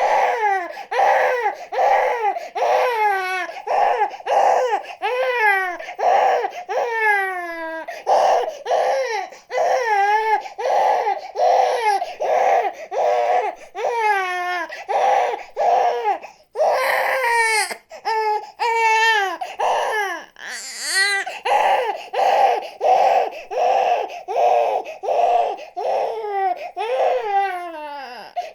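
A baby crying hard: short rhythmic wails, about two a second, broken now and then by a longer cry that slides down in pitch.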